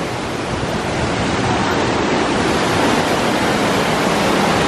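Waterfall cascading down rocks: a steady rushing of water that grows louder over the second half.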